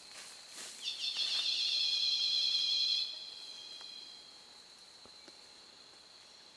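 Insect calling: a loud, rapid pulsing buzz starts about a second in and cuts off abruptly about two seconds later, over a steady high-pitched insect drone.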